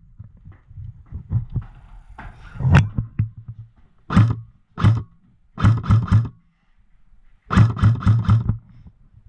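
Airsoft gun firing several short strings of shots, each string two to four sharp cracks in quick succession, with the biggest string near the end.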